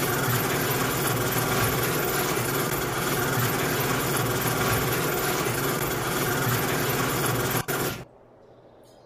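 Garage door opener motor running steadily as it drives a door, then stopping abruptly about eight seconds in.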